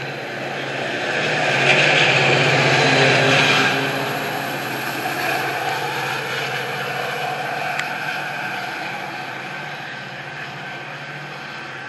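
Metra diesel commuter train pulling out, its rear end passing close with the engine loudest about two to four seconds in, then fading steadily as the train draws away.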